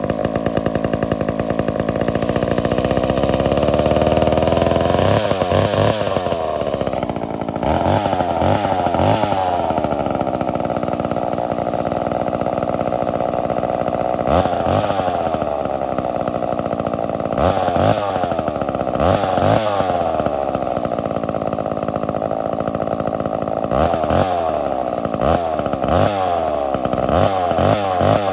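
Homelite Super XL-923 82cc two-stroke chainsaw running steadily at high speed for about five seconds, then revved up and let fall back toward idle over and over, with repeated quick throttle blips near the end.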